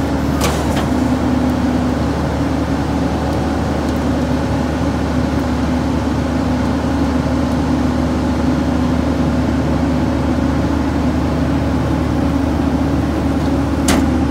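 Heil 5000 rear loader's hydraulic packer running a compaction cycle on Christmas trees: a steady hydraulic whine over the truck's running engine. A sharp metallic clank comes about half a second in and another just before the end.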